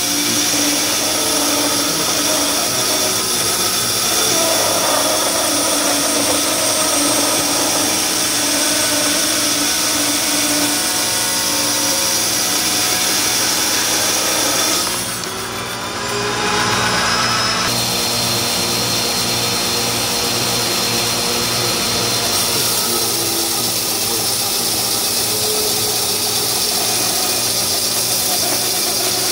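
Resaw bandsaw running with its blade cutting steadily down through a board, first oak, then curly maple. About halfway through there is a brief dip in the sound for a couple of seconds as one cut finishes and the next board goes into the blade.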